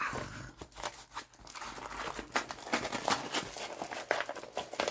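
Packaging crinkling and rustling as it is handled, in quick irregular crackles.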